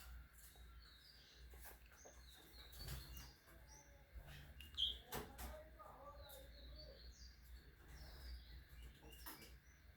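Birds chirping faintly: many short scattered chirps, with one louder note about five seconds in and a few sharp clicks.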